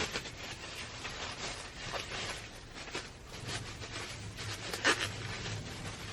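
Rustling and crinkling of merchandise packaging being handled, with scattered clicks and one sharp click just before five seconds in. A faint low hum runs for about two seconds in the second half.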